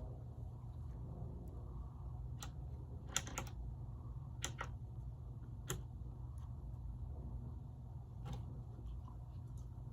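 A few scattered sharp clicks and taps, some in quick pairs, over a steady low hum.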